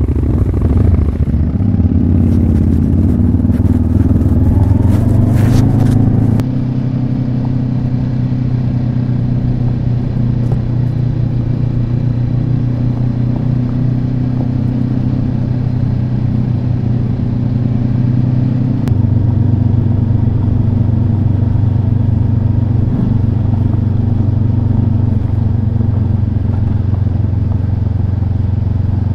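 Motorcycle engine running under way: the note rises with clattering for about the first six seconds, then settles into steady running, and the engine note shifts again a little past halfway.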